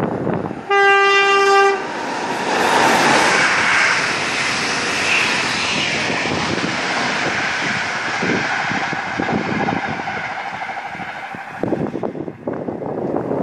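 A train horn sounds one steady blast of about a second as the train approaches, followed by the loud rushing rumble of the train running past beneath the bridge for about ten seconds, which cuts off suddenly near the end, leaving wind noise on the microphone.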